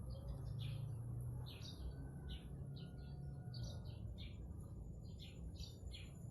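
A small bird chirping over and over, with short high notes sweeping downward, about two a second, over a faint steady low hum.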